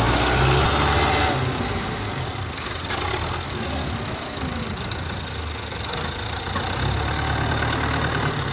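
Belarus tractor's diesel engine running as the tractor works up a mound of loose dirt, louder in the first second or so, easing off, then rising again near the end.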